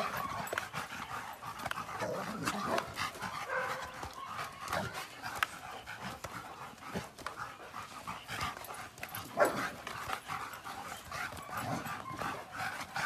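A group of dogs at rough play around a swinging tetherball: scattered short dog cries and knocks, with one louder sound about nine and a half seconds in.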